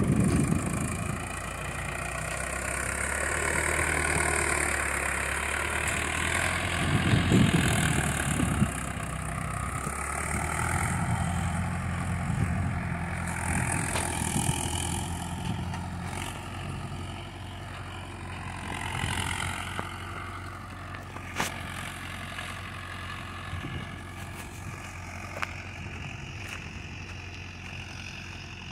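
Tractor engine running steadily while working a mounted three-disc reversible plough, growing gradually fainter in the second half. A couple of sharp clicks come in the later part.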